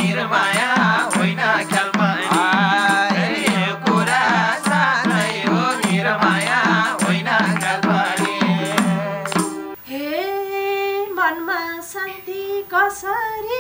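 Nepali folk dohori band playing an instrumental interlude: harmonium drone, madal hand drum in a fast steady rhythm, bansuri flute and tambourine. About ten seconds in the band stops suddenly and a woman's voice carries on singing alone.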